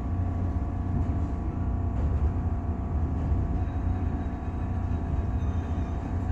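An R143 subway car running along elevated track, heard from inside the car: a steady low rumble with a few steady tones humming over it.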